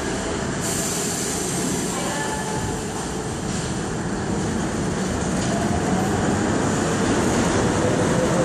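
A Budapest Metro line 1 train pulls out of an underground station with a steady rolling rumble. A faint whine rises in pitch as it gathers speed, and the rumble grows a little louder over the last few seconds.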